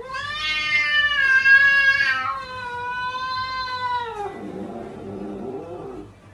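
Silver tabby cat yowling: two long drawn-out cries, each about two seconds, followed by a lower, rougher cry that trails off.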